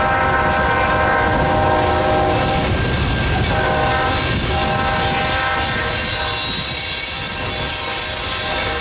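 Loaded coal train rolling past, its cars rumbling over the rails with steady high-pitched tones over the top that break off briefly about three seconds in and fade after about six seconds, giving way to thinner, higher squealing near the end.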